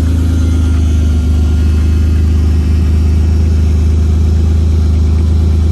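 BMW E30 engine idling steadily, still cold just after a cold start.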